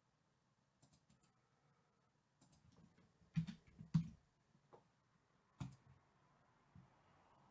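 A few faint, sharp clicks and knocks in a quiet room: two louder ones close together about three and a half seconds in, another just before six seconds, with smaller ticks between.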